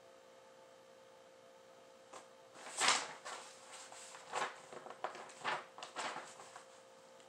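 Quiet room tone with a faint steady hum, then a run of irregular rustling and handling noises starting about two seconds in, the loudest about three seconds in.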